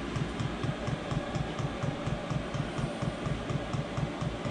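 Chinese 5 kW diesel parking heater running shortly after startup: a steady blower and burner sound with a rapid, even low pulsing and faint, regular ticks over it.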